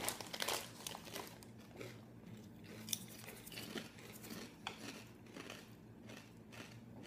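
Chip bag crinkling as a hand reaches in, then crunchy kettle-cooked potato chips being bitten and chewed, with irregular crackly crunches, loudest in the first half second.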